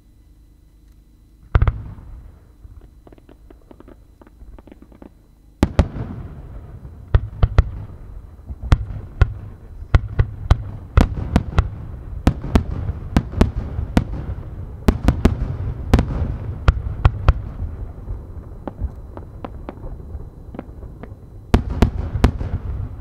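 Aerial firework shells bursting. A single loud boom about a second and a half in is followed by scattered crackling. From about five and a half seconds a dense run of sharp bangs and crackles goes on over a low rumble, with another heavy volley of bursts near the end.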